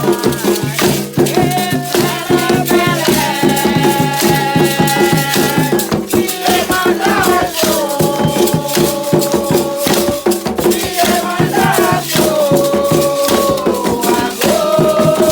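Candomblé ritual music: rattles shaken in a fast, steady rhythm under a chant of long, held sung notes that step from pitch to pitch.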